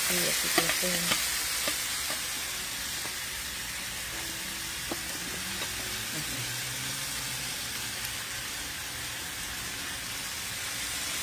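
Seasoned chicken thighs frying in a skillet with a steady sizzle, with a few light clicks in the first couple of seconds.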